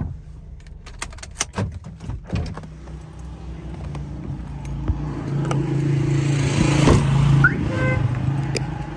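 Car engine idling steadily, with a quick run of sharp clicks about a second in. The idle grows louder from about five seconds in as the driver's door is opened, and there is a knock about seven seconds in.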